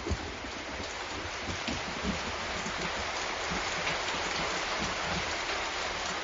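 Steady rain falling in an even hiss, with the tail of a low thunder rumble right at the start.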